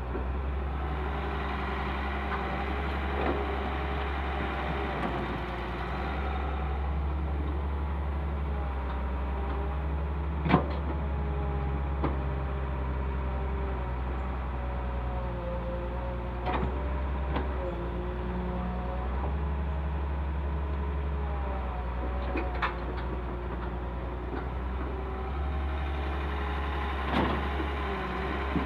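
Diesel engines of a Caterpillar tracked excavator and an idling Sonalika tractor running steadily, the excavator's pitch rising and falling as its hydraulics work the boom and bucket. Sharp knocks come every few seconds as the bucket digs and dumps earth into the tractor's trolley, the loudest about ten seconds in.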